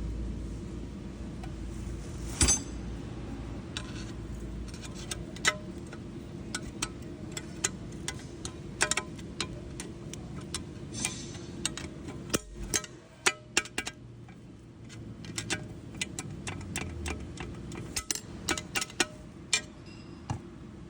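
Metal parts and tools clinking and knocking, a string of short irregular taps and clicks, over a steady low hum that stops about two thirds of the way through.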